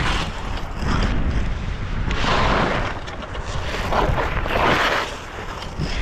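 Skis scraping and chattering over hard, icy moguls, with surges of scraping on turns about two seconds in and again around four to five seconds in, over wind buffeting the microphone.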